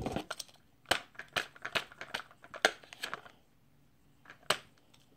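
Small hard objects being handled: a quick, uneven run of clicks and knocks, then one more knock about four and a half seconds in.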